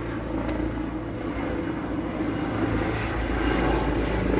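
Helicopter flying overhead: a steady engine and rotor noise that grows slowly louder.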